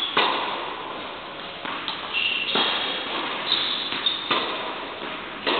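Tennis ball being hit by rackets and bouncing on an indoor court during a rally: sharp pops every second or two, each ringing on in the echo of the large hall. A couple of short high squeaks from shoes on the court come in between.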